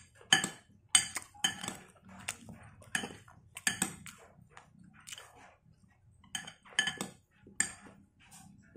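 Metal spoon clinking and scraping against a ceramic salad bowl: about a dozen sharp clinks at irregular intervals.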